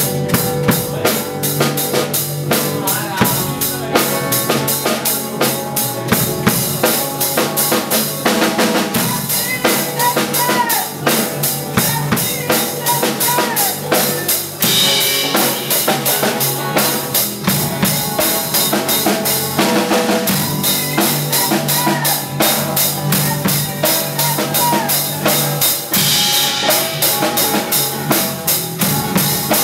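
Live rock band playing: a drum kit keeps a steady beat of bass drum and snare under an electric guitar, continuous and loud.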